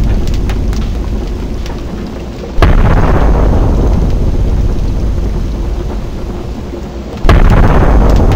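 Explosion sound effects: a big blast's rumble fading away, then two more sudden blasts, about two and a half and seven seconds in, each dying off into a long rumble.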